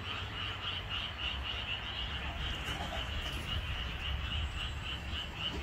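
Frogs calling in a steady, evenly pulsing chorus over a low steady hum.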